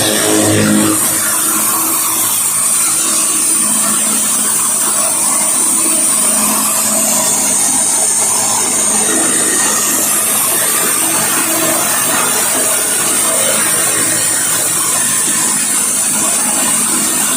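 Pressure washer running steadily: the constant hiss of the water spray over the low, even hum of its engine.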